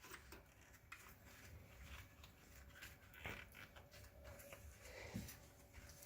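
Near silence, with a few faint light clicks and taps as brake caliper pins are slid into place by hand.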